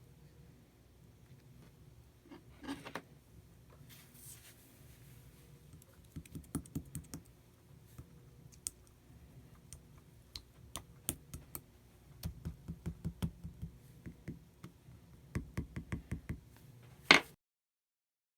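Slime being worked by hand, making quick runs of small clicks and pops with a louder pop near the end; the sound then cuts off abruptly.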